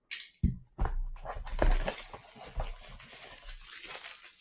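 Shrink-wrap plastic and cardboard of a sports-card blaster box being torn open: a sharp rip, then a run of crinkling and crackling.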